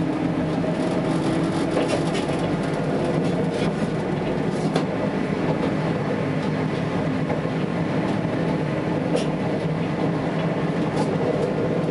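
Tatra T3S tram running at steady speed, heard from the driver's cab: a continuous rumble of wheels on rails with a steady low hum, and a few sharp clicks over the track.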